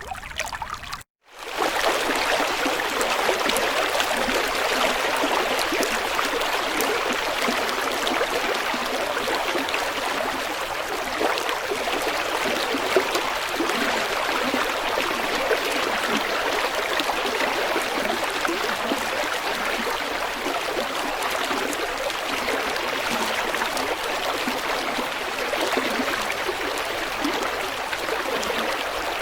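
A stream flowing, a steady rushing and trickling of water, with a brief gap in the sound about a second in.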